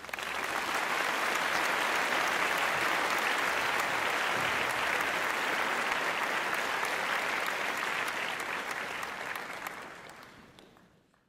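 Applause from a crowd: dense, steady clapping that fades out over the last couple of seconds.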